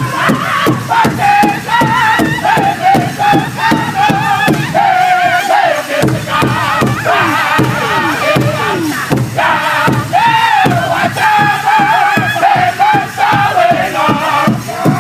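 Powwow drum group singing together in high, strained voices over a steady unison beat on a shared big drum.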